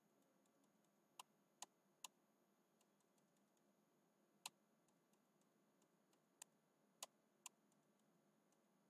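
Near silence broken by about seven single sharp clicks of computer keys being pressed: three in quick succession a little over a second in, one midway, and three more spaced out later.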